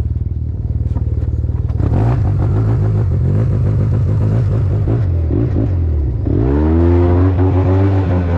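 Yamaha TMAX 530 scooter's parallel-twin engine, still cold, with a freshly fitted Malossi variator and 14-gram rollers. It runs steadily, then from about two seconds in the revs rise and fall, and about six seconds in they climb sharply and hold high.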